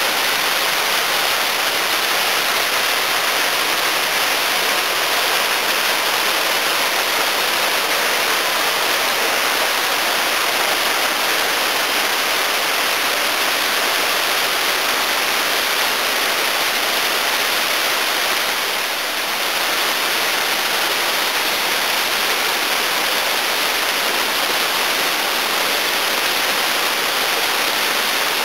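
Big Seven-spring waterfall, a stepped cascade about 7.5 m high, with water rushing down it in a steady, even rush that dips slightly for a moment about two thirds of the way through.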